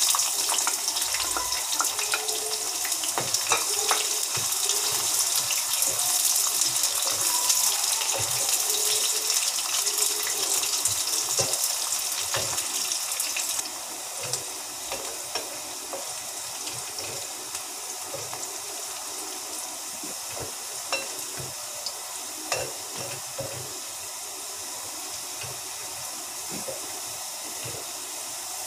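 Sliced onions sizzling in hot oil in a non-stick wok, with a wooden spatula scraping and knocking against the pan as they are stirred. The sizzle drops abruptly to a quieter steady frying about halfway through.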